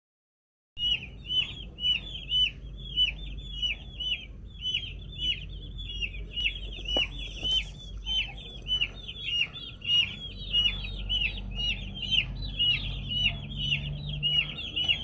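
Birds peeping over and over: short, high-pitched calls at about two to three a second, starting suddenly about a second in, over a low background rumble. A single sharp click comes about halfway through.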